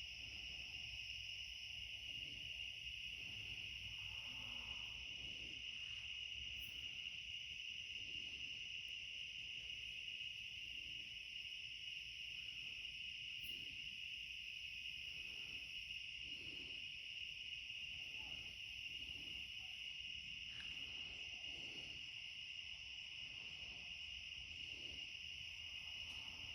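A dense, steady chorus of night-singing insects, the uploader's cicadas, holding one high pitch with no breaks. A faint low rumble runs underneath.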